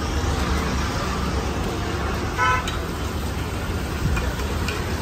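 Steady street-traffic rumble with a short vehicle horn toot about two and a half seconds in, over egg mixture sizzling on a hot iron griddle. A steel spatula taps the griddle faintly a couple of times near the end.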